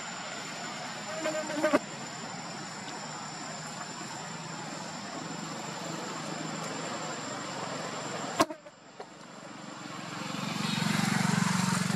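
Outdoor ambience: a steady high insect drone over a background hiss, with a sharp click about eight and a half seconds in and a low rumble that swells near the end.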